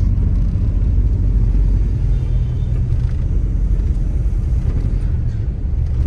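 Steady low rumble of a car driving slowly, heard from inside its cabin as it rolls onto a ferry's vehicle deck.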